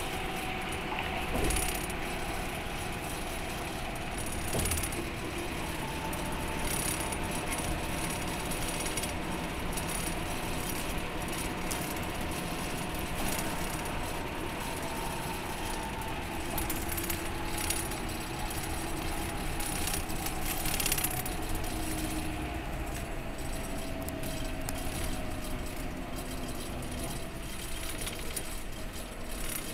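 Inside an express coach cruising at highway speed: a steady mix of engine hum and tyre and road noise, the engine's tone drifting slowly in pitch. A few short knocks from bumps cut through, the loudest about a second and a half in and again around twenty seconds in.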